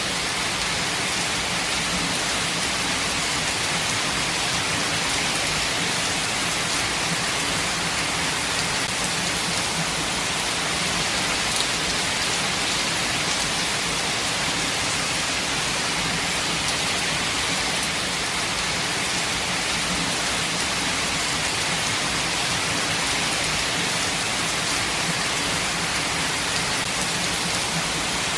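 Steady rainfall: an even hiss of rain with faint individual drops pattering on surfaces, holding at one level throughout.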